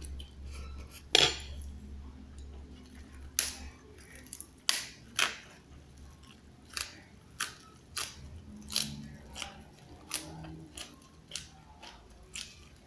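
Close-up chewing and biting of raw papaya leaves: a string of sharp, crisp crunches, one every half second to second, with a loud one about a second in.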